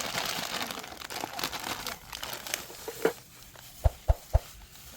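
Crinkling and rustling handling noise for about three seconds, then three dull thumps in quick succession.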